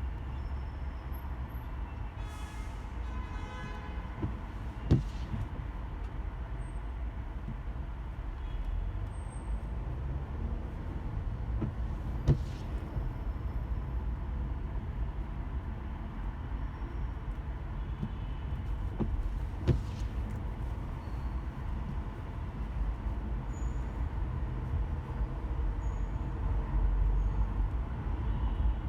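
Steady low rumble of a car driving in slow, congested traffic in light rain, with surrounding traffic noise. A vehicle horn sounds briefly a couple of seconds in. Three sharp clicks come about seven seconds apart.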